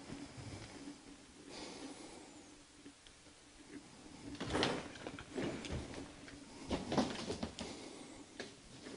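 A short breathy rush close to the microphone, then from about four and a half seconds in, irregular scuffs, knocks and crunches: footsteps moving across a floor littered with debris.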